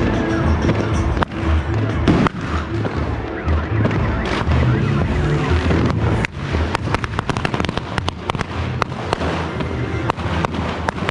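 Firecrackers going off in many sharp, irregular cracks and pops, coming thickest from about six seconds in, over music with a heavy bass line.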